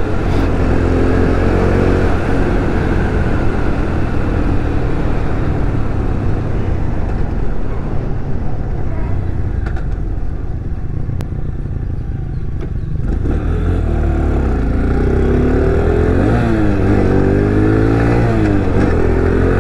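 X-Pro Vader 125cc motorcycle's small single-cylinder engine running under way, with wind rushing on the microphone. About two-thirds in the engine pulls harder, its pitch climbing and dropping back several times as it is revved through the gears.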